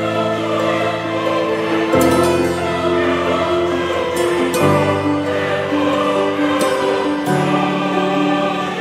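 Background music: a choir singing long held chords, the chord changing about every two to three seconds.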